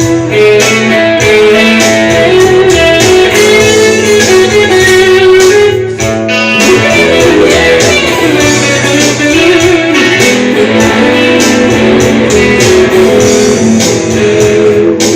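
Ibanez RGT320Z neck-through electric guitar played with a clean tone, improvised single-note melody lines over an A-major backing track, with a held note wavering in pitch about ten seconds in.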